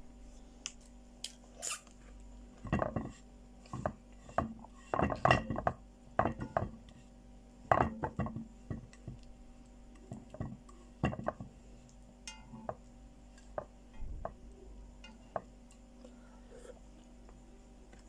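Fingers and long false nails scraping and tapping against a metal frying pan while picking out pieces of fried bread. The clinks and scrapes come irregularly, a few at a time.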